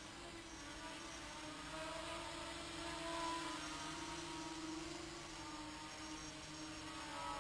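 Micro quadcopter's four HobbyKing AP-03 7000 kV brushless motors spinning 3x2 propellers in flight: a faint buzzing whine whose pitch wavers up and down as the throttle is worked. The craft is heavy for its size and needs about 60–65% throttle to hover.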